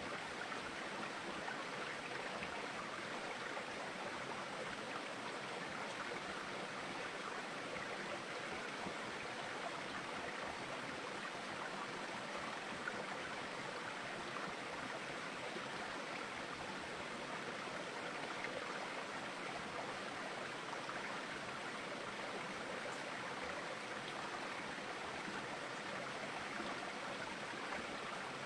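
Steady rushing of flowing water, unchanging throughout.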